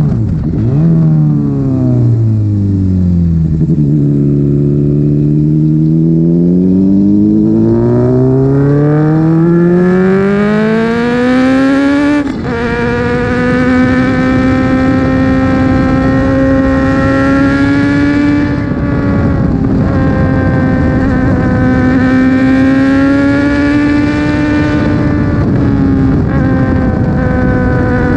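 Honda CB600F inline-four engine and exhaust on the move, heard close to the silencer. The engine slows over the first few seconds, then winds up steadily for about five seconds. About twelve seconds in, a gear change drops the pitch suddenly, and the engine then holds a fairly steady cruising note with slight rises and falls.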